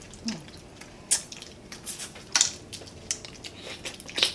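Close-up eating sounds of cooked crab being broken apart by hand and eaten: a few sharp wet cracks and mouth smacks about a second in, around two and a half seconds and again near the end.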